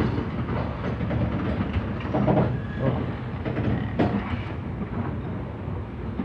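Covered hopper wagons of a borax freight train rolling past at close range: a steady rumble of steel wheels on rail, with occasional sharp clacks as the wheels cross the rail joints, two of them louder about two and four seconds in.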